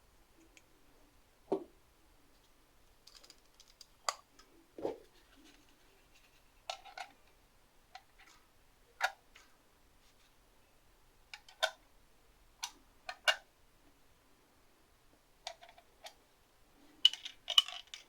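Scattered sharp clicks and light knocks of small hard objects being handled, irregular and a second or more apart, a couple with a duller thud, and a quick run of clicks near the end.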